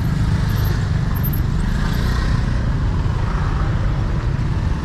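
Busy city street traffic: motor scooters and cars driving past, a steady mix of engine noise.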